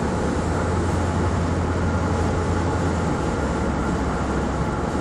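Steady road noise and low engine drone inside a car's cabin at highway speed.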